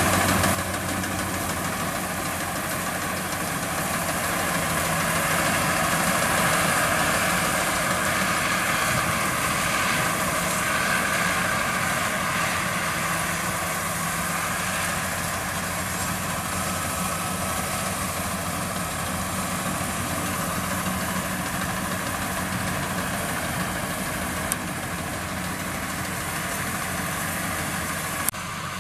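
Combine harvester's diesel engine running steadily, with two short sharp clicks near the end.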